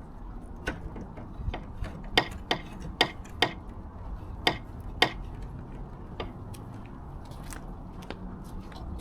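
Irregular sharp clicks and taps, about a dozen over several seconds and bunched in the middle, over a steady low hum.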